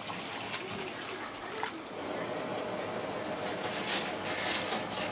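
Kitchen noise: a steady hiss, like running water or hot oil, growing louder about two seconds in, with a few light clicks and clatter.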